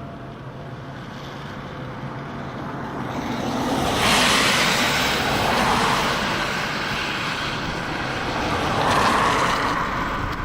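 Road and engine noise from a moving vehicle, with a loud rushing noise that swells about four seconds in and again near the end.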